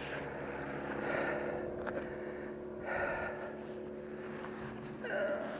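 A person breathing hard in three heavy, breathy exhales while straining to haul in a magnet-fishing rope. Under the breaths runs a steady low hum of distant traffic, and there is a single small click near the middle.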